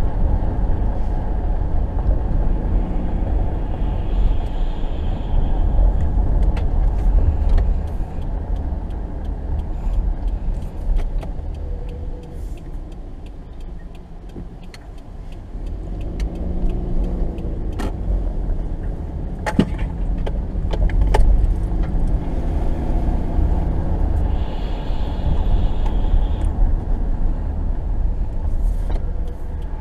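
Cabin noise of a 2018 Subaru Forester driving: a steady low rumble of tyres and engine. It gets quieter for a moment around the middle, then picks up again as the car pulls away. Scattered light clicks and rattles are heard, several close together about two-thirds of the way in.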